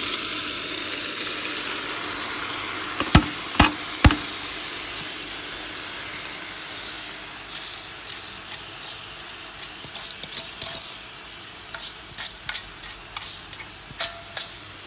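Washed rice tipped from a steel colander into hot ghee in an aluminium pot, sizzling loudest at first and slowly fading. Three sharp knocks come about three to four seconds in, then a run of light clicks and scrapes as the colander is tapped and scraped against the pot.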